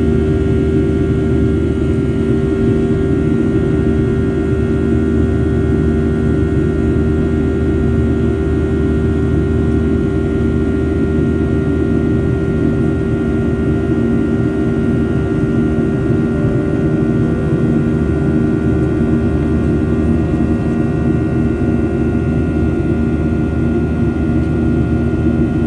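Cabin noise of a Boeing 737-800 climbing after takeoff: the CFM56-7B turbofan engines give a loud, steady drone mixed with airflow noise, with several constant humming tones held throughout.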